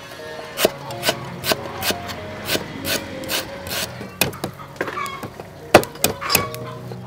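Sharp, irregular snaps and clicks, about two a second, from fresh vegetables being prepared by hand: pea eggplants plucked from their stems and greens cut on a bamboo table. Soft background music with sustained notes plays underneath.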